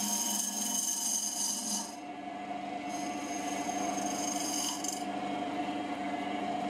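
JIB W0903X wood lathe running with a steady hum while a cutter held in a homemade sphere-turning jig cuts into the spinning wooden blank. The cut hisses with shavings in two passes of about two seconds each, one at the start and one about three seconds in.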